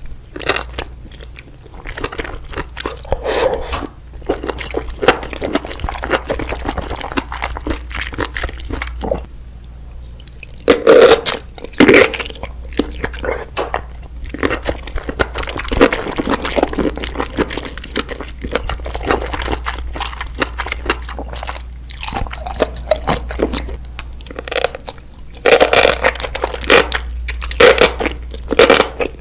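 Close-miked chewing of mushrooms: a steady run of crunching, squishing mouth sounds, with louder bites about eleven seconds in and again near the end.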